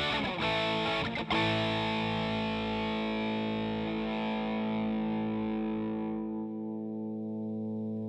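Electric guitar through an Electro-Harmonix East River Drive overdrive pedal, switched on: a couple of overdriven chords struck in the first second or so, then the last one left to ring, its bright top fading over the last few seconds.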